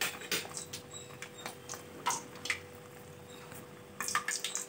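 Hot deep-frying oil in an iron kadai sizzling with scattered crackles and pops over a faint steady hum; the crackling thickens near the end as the murukku goes toward the oil.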